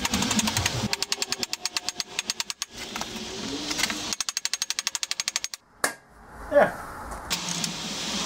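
Two runs of rapid, even metallic clicking, about a dozen clicks a second, each lasting about a second and a half, from work on a motorcycle's rear axle and chain adjuster. A single sharp knock follows, then a louder clunk.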